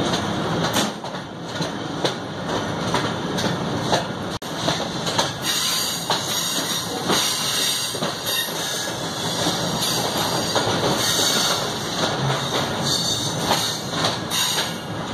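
Passenger train running on the rails, heard from inside a moving coach: a continuous rumble and rattle of wheels on track with scattered clicks and knocks, growing hissier about five seconds in.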